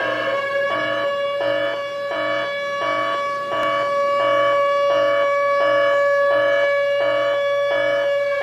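Siren-like wailing tone, its pitch gliding up and then held steady, over a pulsing electronic beat of about two pulses a second: a siren sound effect in a hype intro soundtrack.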